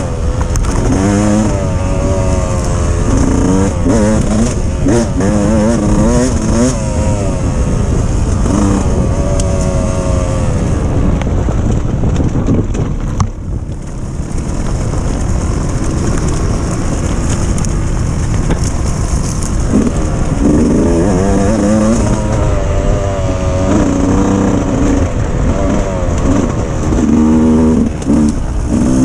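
Dirt bike engine revving hard, its pitch climbing and dropping again and again as the throttle is worked, over a constant low rumble; it eases off briefly about halfway through.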